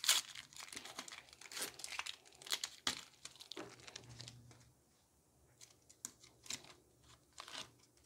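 Foil wrapper of a Pokémon booster pack torn open by hand: a sharp rip right at the start, then dense crinkling of the foil for about three seconds. Scattered softer crinkles follow in the second half.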